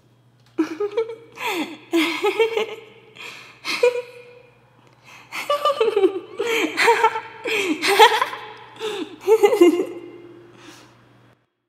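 A person giggling in quick bursts of laughter, in two runs with a short pause about halfway through.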